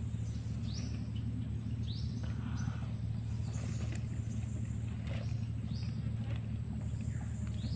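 Outdoor natural ambience: a steady high insect drone, with short rising chirps now and then, over a low steady hum.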